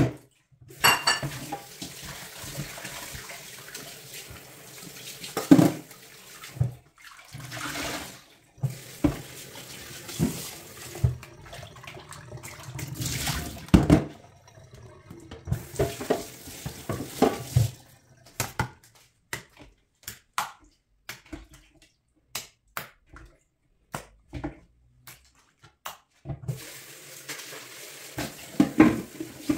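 Kitchen tap water running into a stainless steel sink and a plastic bowl while raw meat is rinsed by hand, with splashing and the knock of the bowl and meat being handled. The flow stops for a while in the later part, leaving only short splashes and knocks, then runs again near the end.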